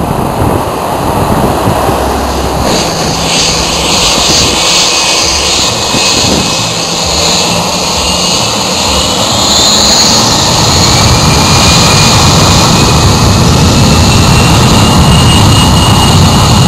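Cessna Citation X business jet's twin Rolls-Royce AE 3007 turbofans whining and spooling up for takeoff: a high whine over a rushing jet noise that grows louder through the second half.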